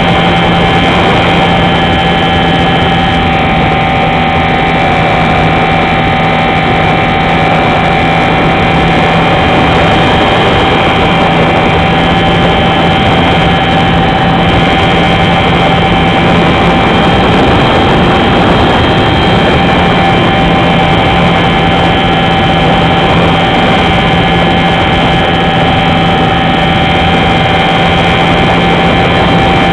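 Motor and spinning propeller of an R/C Super Cub model airplane in flight, heard close up from an onboard camera as a steady, loud hum under a rush of wind. The hum dips briefly a little past halfway.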